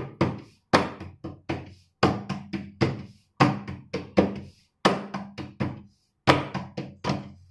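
Bare hands patting ragi (finger millet) dough flat into a roti on a wooden board: a quick run of pats, about three or four a second, with a short pause about six seconds in.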